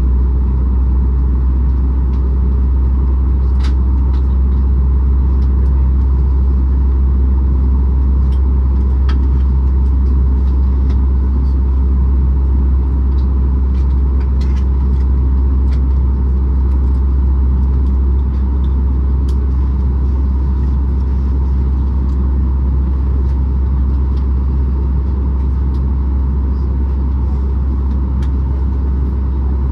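Steady low rumble and hum inside the cabin of a Boeing 737 MAX 8 on the ground, with its CFM LEAP-1B engines running at idle, plus a few faint ticks.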